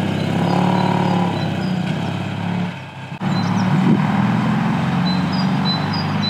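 Engine of an old panel van running steadily as it drives off, a low, even hum that dips briefly about three seconds in. Birds chirp in the second half.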